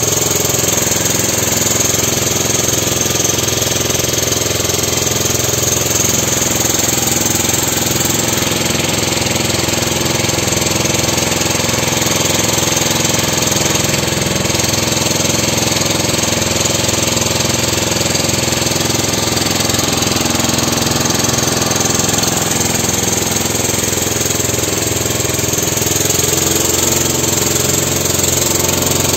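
Tour motorboat's engine running steadily as the boat cruises along the river.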